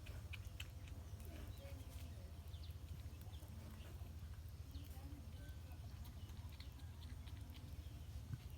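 Porcupines chewing wild leaves: faint, scattered small clicks and crunches with brief squeaky sounds, over a steady low hum.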